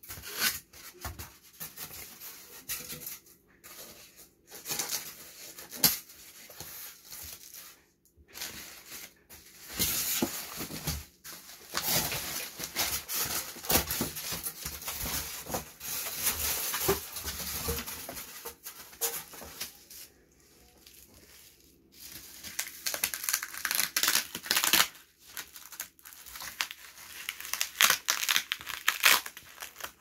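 Packaging being unwrapped by hand: wrapping torn and crinkled in uneven rustling bursts with sharp crackles and short pauses, with a quieter spell before a last busy stretch near the end.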